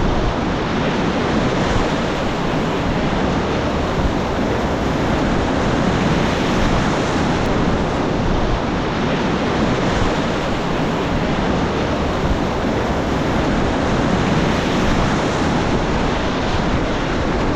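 Steady rushing of a whitewater river running in high flood water.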